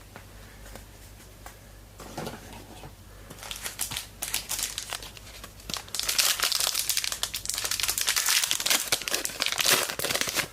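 A trading card pack's wrapper being handled, torn open and crumpled: scattered rustles at first, then a dense, loud crinkling through the second half.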